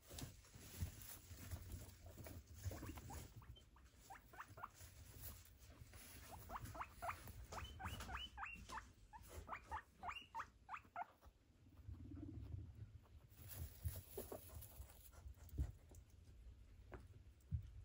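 Guinea pigs squeaking: a quick run of short rising squeaks, about three or four a second, in the middle, over faint rustling and small clicks while they feed.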